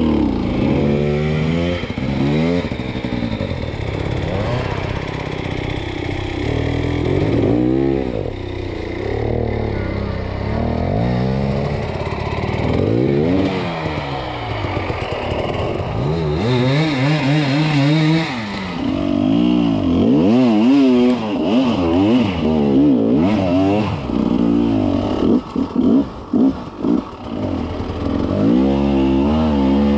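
Enduro dirt bike engines revving hard, rising and falling again and again as the bikes claw their way up a steep, leaf-covered slope. The engine sound drops out briefly a few times near the end.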